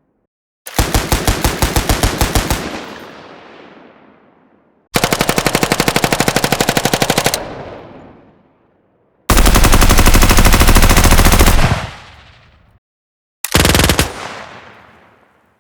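M60 machine gun firing full auto in four bursts: three of about two and a half seconds and a short final one. Each burst is a rapid, even run of shots followed by a long echoing fade.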